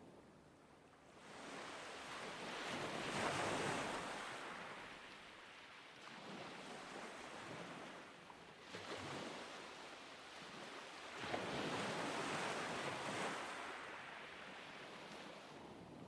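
Ocean waves washing in and out, each swell rising and falling away, with the two largest peaking about three seconds in and about twelve seconds in, over a light wind.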